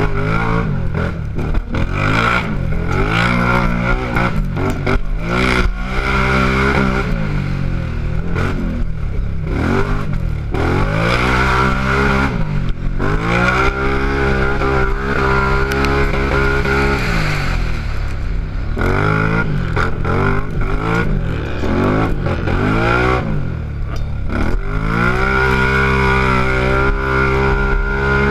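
Race ATV's engine under hard throttle, its pitch climbing and dropping again and again with throttle and gear changes, then holding high and steady near the end. Rattles and scrapes from the quad over the rough ground.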